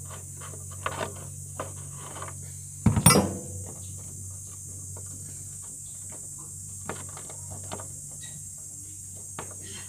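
Scattered small clicks and scrapes of screws being worked loose from a motorcycle's plastic side cover, with one louder clatter about three seconds in, over a steady low hum.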